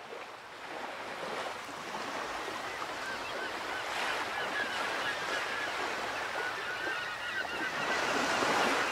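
A flock of birds calling, many short overlapping chirps over a steady rushing wash of wind or surf, fading in from silence and slowly swelling.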